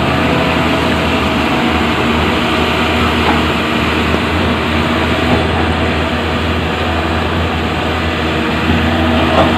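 Caterpillar 320D2 hydraulic excavator's diesel engine running steadily, with a deep, even hum.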